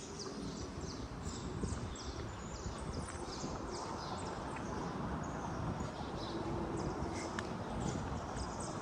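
Footsteps crunching on dry beach sand in an even walking rhythm, over a steady rush of surf.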